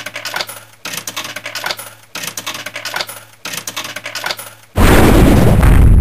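Coins dropping and clinking into a vending machine, in four runs of rattling clinks about a second each over a low steady hum. Near the end a sudden, very loud, harsh noise cuts in and keeps going.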